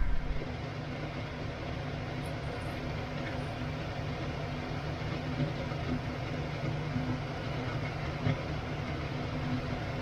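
Gulgule batter, sweet wheat-flour fritters, deep-frying in hot oil in a kadhai, a steady sizzle. A faint low hum runs underneath.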